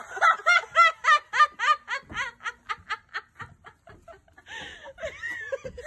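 A person laughing hard: a long run of quick, high-pitched ha-ha bursts, about four a second, that tails off over about three seconds, with a few softer sounds near the end.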